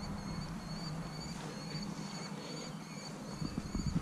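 A steady run of short, high chirps from a small creature, repeating a little under three times a second over faint outdoor background noise.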